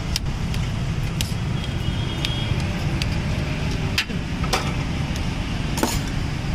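Steady low rumble of road traffic, with scattered sharp metallic clicks and clinks, one longer clatter near the end.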